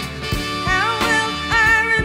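Background music: a song with a steady drum beat, and a wavering melody line that comes in just under a second in.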